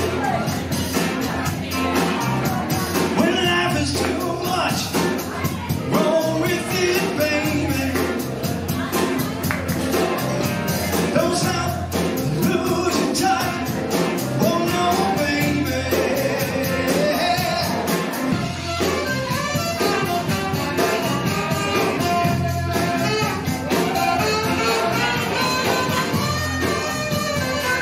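A live band with a lead singer playing a song through the house sound system, with a steady drum beat under the vocals.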